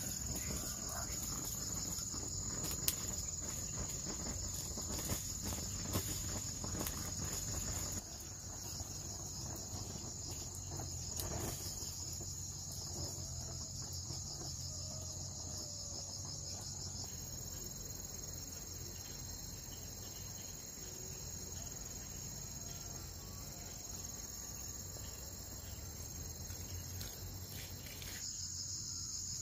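Steady high-pitched insect chorus with a fine pulsing texture, with a few sharp clicks in the first several seconds.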